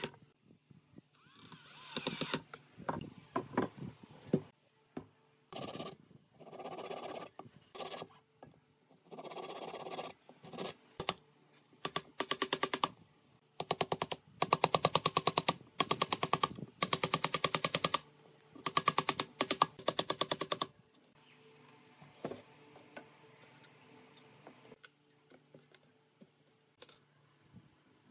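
Cordless drill driving screws into small metal hinges in repeated short bursts, several of them a rapid clattering run. After about twenty seconds only faint light knocks remain.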